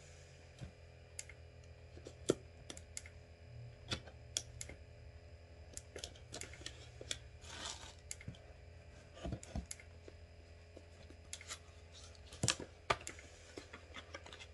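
A small paperboard cosmetics box being cut open and handled: irregular light clicks, taps and short cardboard rustles as its seal is cut and its flaps are pried open.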